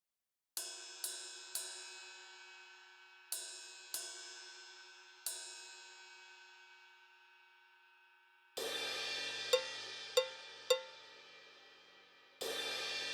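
Cymbal-like metallic strikes synthesized in a digital audio workstation: six sharp hits, in two groups of three, each ringing out in a long decay. About eight and a half seconds in, a louder sustained wash begins, with three short pings over it, and another wash starts near the end.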